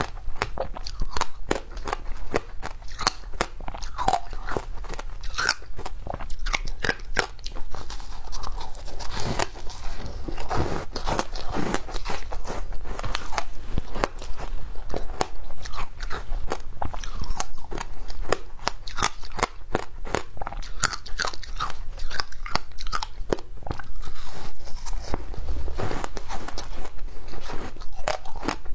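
Frozen passion fruit ice being bitten and chewed: a dense, irregular run of crunching and cracking as the ice breaks between the teeth.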